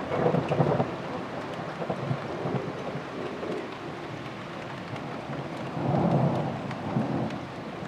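Thunder from distant cloud-to-ground lightning rumbling over steady rain, with a louder swell of rumble about six seconds in.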